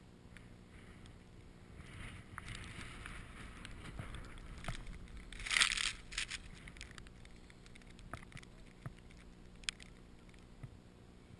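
Skis running through deep powder snow: a soft hiss that builds to a louder rush about five and a half seconds in, then eases off, with scattered small clicks.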